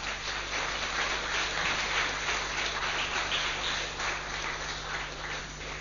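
Audience applauding: a crackle of many hands clapping that swells at the start and dies away near the end.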